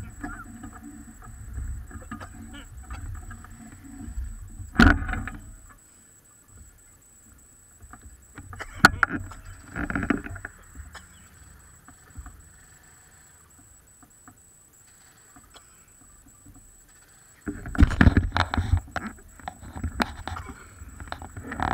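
Low rumble and a few sharp knocks on the camera's microphone, with the faint drone of a distant small engine in the first few seconds. The loudest knocks come about five seconds in, twice near the middle, and in a cluster near the end.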